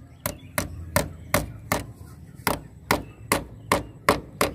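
Hammer striking a pipe clip to fix a PVC conduit pipe to a wall: about a dozen quick, evenly spaced blows, a little under three a second.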